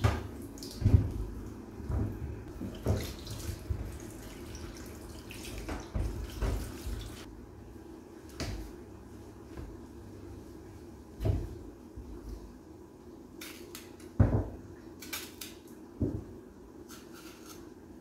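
Kitchen tap running into a stainless steel sink while plantains are washed under it, with knocks of the fruit being handled. The water shuts off about seven seconds in, and a few louder thumps and knocks follow.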